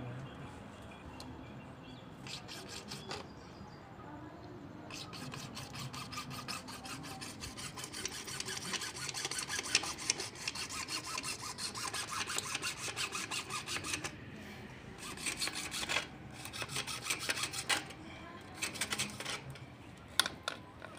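Hacksaw cutting through a PVC pipe in quick, even back-and-forth strokes. The sawing runs in long spells, broken by short pauses about two-thirds of the way through and near the end.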